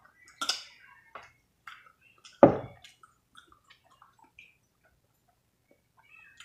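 Small wet clicks and squishes from eating and handling food and sauce bottles at a table, with a sharp crackle about half a second in and a loud knock about two and a half seconds in.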